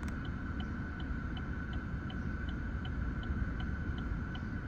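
Wind rumbling on the microphone, with a faint, regular ticking about three times a second and a steady high whine.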